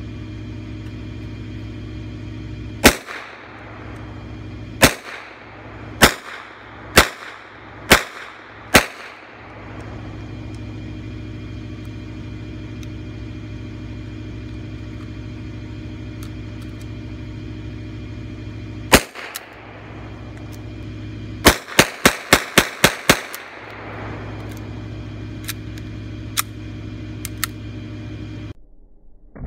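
Scratch-built semi-automatic pistol modeled on a Mauser C96, chambered in .32 ACP, firing. Six single shots come about a second apart, then one lone shot, then a rapid string of about seven shots in under two seconds. A few faint clicks follow near the end.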